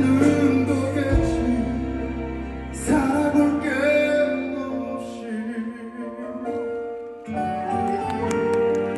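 A slow pop ballad played live by a band with keyboards and bass, with the male singer's held sung notes, heard from the audience in a reverberant hall. The low bass drops out about seven seconds in.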